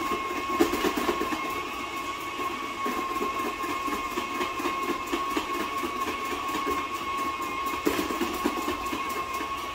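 Stand mixer running at low speed with a food processor attachment, its motor giving a steady whine while celery stalks pushed down the feed tube are sliced with an uneven crunching.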